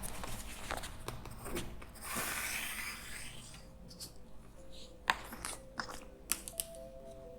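Scattered sharp clicks and taps, with a brief hissing rush about two seconds in; faint music with held notes comes in about halfway.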